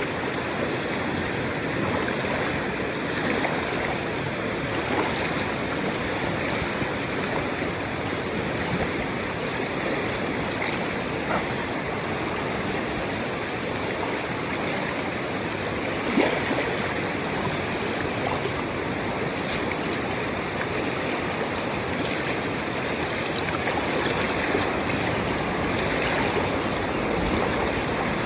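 Steady rush of river water, with a few faint knocks.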